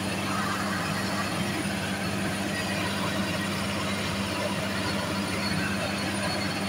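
Diesel engine of a borehole drilling rig running steadily with an even hum, no change in speed.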